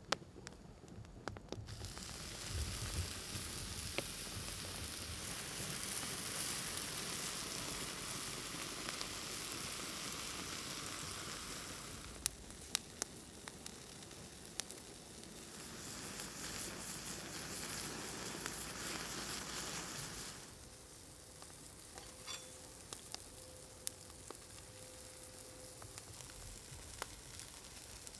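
Caul-fat-wrapped stuffed steak sizzling on a hot grill grate over a wood fire, the sizzle starting suddenly about two seconds in. It dips around the middle, comes back, then drops away about two-thirds of the way through, leaving the wood fire crackling and popping.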